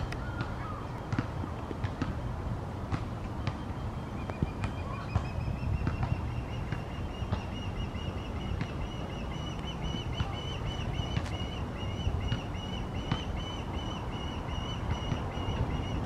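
Osprey calling from its nest: a long, rapid series of high, whistled chirps that starts about four seconds in and keeps going, over a low rumble.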